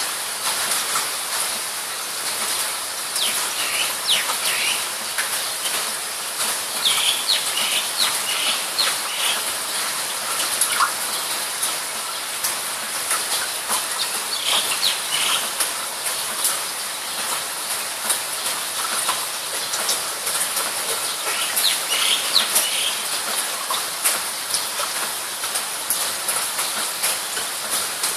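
Steady high hiss with many faint ticks, and several short bursts of bird chirps a few seconds apart.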